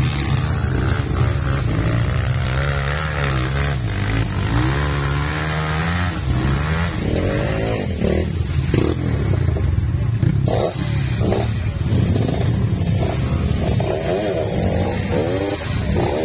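Trail motorcycle engine running and revving up and down with changing throttle, its pitch rising and falling repeatedly, with some scraping and clattering.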